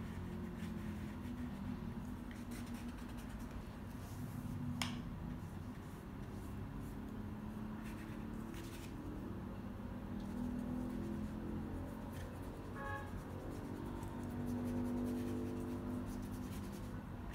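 Paintbrush bristles stroking and dabbing paint on canvas paper, giving soft scratchy strokes, with one sharp tick about five seconds in.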